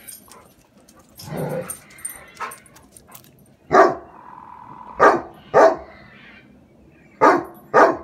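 Dog barking: five short barks, the first about four seconds in, then a pair close together, and another pair near the end.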